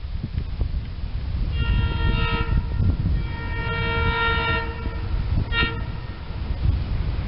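SEPTA Silverliner IV electric commuter train sounding its multi-tone air horn as it approaches: two long blasts and then a short one, the opening of the standard grade-crossing horn signal. A steady low rumble runs underneath.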